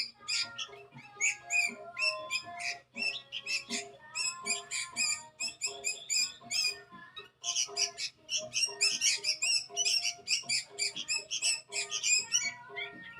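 Sooty-headed bulbul (kutilang) calling in rapid, dense strings of short chirps, with brief pauses about three and seven seconds in; the bird is hungry.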